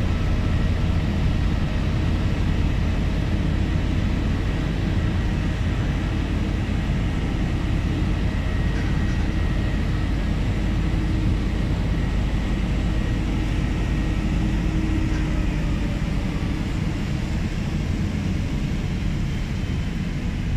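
Fire engines running at a fire scene, a steady low engine drone with a faint steady whine above it.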